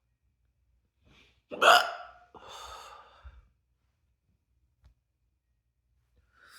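A single loud, sudden hiccup about a second and a half in, followed by about a second of breathy noise.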